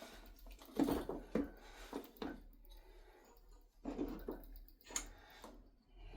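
Hand tools and metal motorcycle rear-axle parts clinking and knocking: a series of separate short knocks, a few to the second at times, with the loudest about a second in and near five seconds in.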